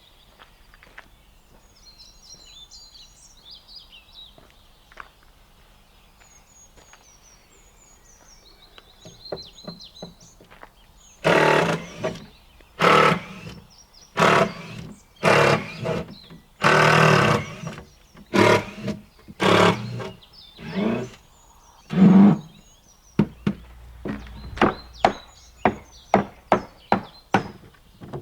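Wood being worked by hand: a run of loud, rasping strokes, each under a second and about one a second, beginning about ten seconds in, then shorter, quicker strokes near the end.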